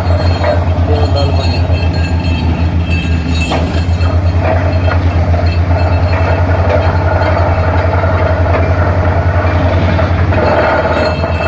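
Borewell drilling rig running under power, its engine and air compressor giving a loud, steady, fast low throb, with a few short knocks about four seconds in.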